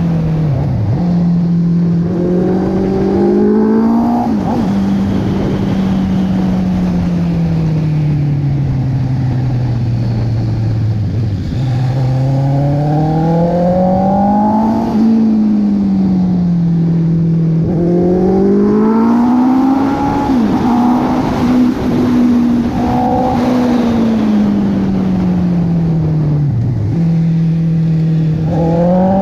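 Honda CB650R's inline-four engine under way, heard from the rider's seat. The revs climb and fall over and over as the throttle is opened and closed through the bends, with one long slow fall in the middle, over a steady rush of wind and road noise.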